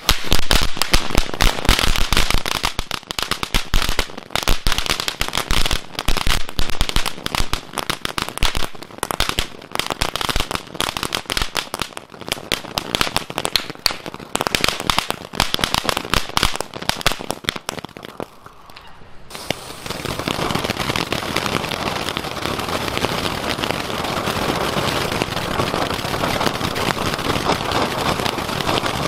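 Category 1 firework ground fountains burning. For about the first nineteen seconds a dense rapid crackling dominates, then it dips briefly and gives way to a steady rushing hiss of spraying sparks.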